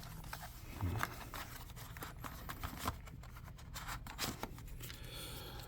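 Soft rustling and scattered light clicks of paper and plastic packaging being handled.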